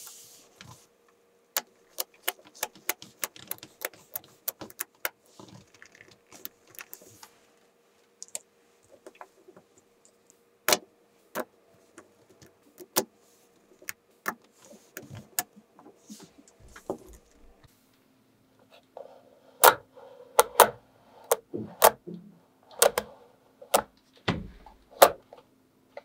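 Small magnetic balls clicking and snapping against each other as they are pulled apart and set in place. The clicks are sharp and irregular, and come thicker and louder near the end.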